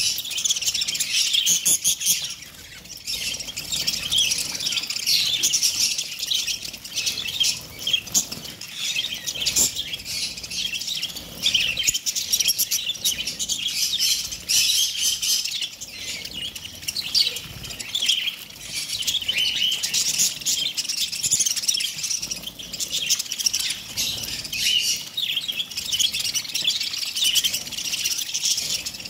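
A flock of budgerigars chattering: many high, short chirps overlapping in a dense, unbroken chorus.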